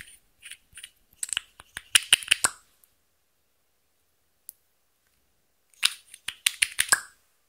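Close-miked clicks and taps of a small plastic makeup tube and its cap being handled and opened. There is a quick run of clicks in the first few seconds, a single tick in the middle, then another run near the end.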